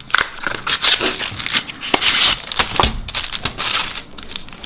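A Schogetten chocolate bar's cardboard box being opened and its foil-wrapped bar pulled out and pressed flat: a dense run of crinkling, rustling foil and cardboard with many small crackles.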